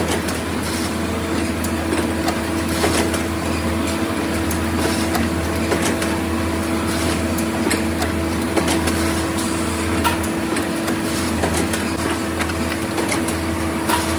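Steady hum of running machinery, with scattered short clicks and knocks.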